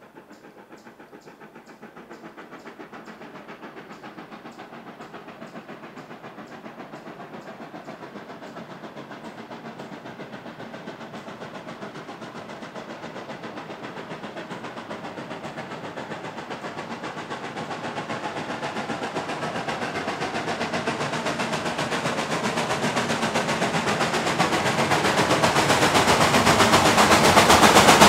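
Reading T-1 class 4-8-4 steam locomotive No. 2102 approaching under power. Its exhaust beats in a quick, steady rhythm and grows steadily louder as it nears.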